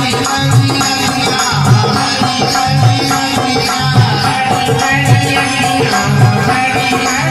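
Loud music with a steady bass drum beat about twice a second and shaker-like rattling percussion, played through a sound system.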